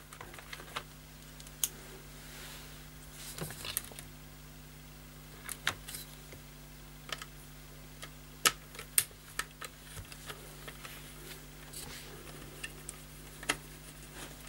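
Small screwdriver undoing the little screws on a clock radio's circuit board: scattered light clicks, clinks and short scrapes of metal and plastic being handled.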